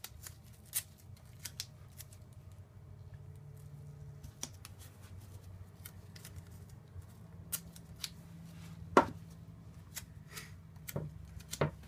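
Blue painter's tape being torn into short strips and pressed onto the corners of a small wooden tray: scattered crisp ticks and rips, the sharpest about nine seconds in, over a faint low hum.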